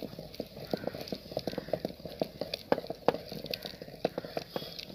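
Wooden masher pounding and churning cooked mustard greens (sarson ka saag) in an aluminium pot: irregular knocks, a few a second, as the stick strikes the pot and thick wet greens.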